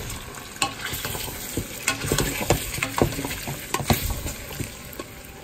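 Black plastic spoon stirring drained ravioli and butter in a metal pot, with irregular knocks and scrapes of the spoon against the pot.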